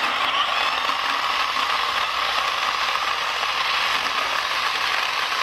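Mini chainsaw running steadily at full speed, cutting through small branches.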